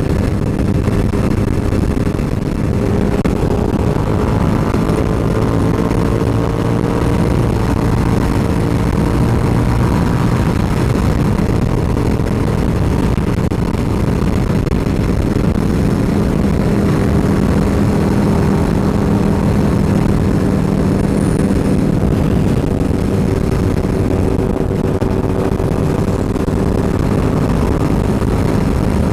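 Suzuki SV650's V-twin engine running at highway speed under heavy wind rush on the microphone. The engine note climbs for a few seconds shortly after the start, then holds steady.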